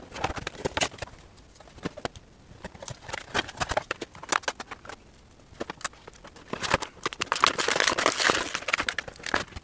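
Handling noise from plastic action figures and their packaging: a scatter of clicks and taps, with a denser stretch of plastic crinkling about seven to nine seconds in.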